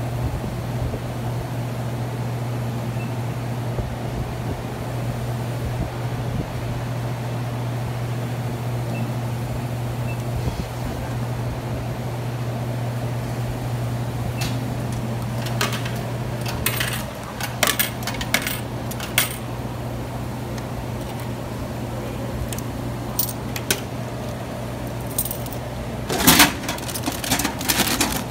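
Snack vending machine humming steadily; about halfway through a bag of chips drops from its spiral, followed by a run of sharp clicks and knocks, with a louder rattle near the end.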